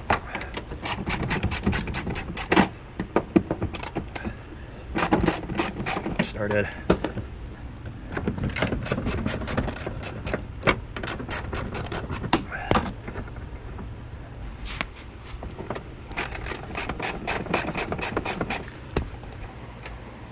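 Hand socket ratchet clicking in several quick runs, with short pauses between, as 9/16-inch door hinge bolts on a Chevy pickup are backed out.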